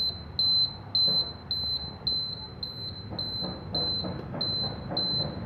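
Newly installed electric scooter buzzer giving a steady run of high-pitched beeps, about two a second, in time with the flashing turn indicator.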